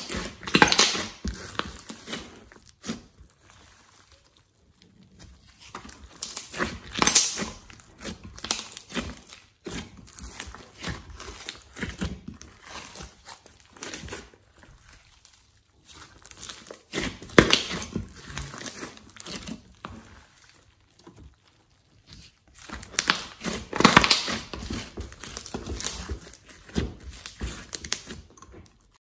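Glossy slime being squeezed and kneaded by hand, with crackling, squelching pops as trapped air is pressed out. It comes in bursts with each squeeze, louder around the start and again about 7, 17 and 24 seconds in, and quieter between.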